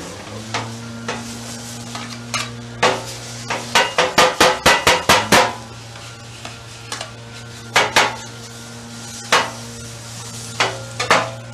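Metal spatulas chopping and scraping skirt steak on a steel flat-top griddle: sharp clanks of the blades on the plate, with a fast run of about eight strikes near the middle and scattered single strikes before and after, over a steady low hum.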